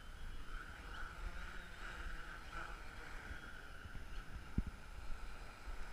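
Multirotor drone's propellers humming, wavering in strength, with wind buffeting the microphone and a single short thump about three-quarters of the way through.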